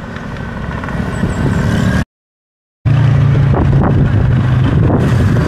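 Vehicle engine running with road and traffic noise, cut off for under a second about two seconds in, then continuing as a louder, steady low drone.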